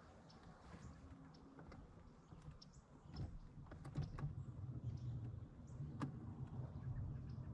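A low, steady motor hum sets in about three seconds in and builds slightly, with scattered light clicks over it.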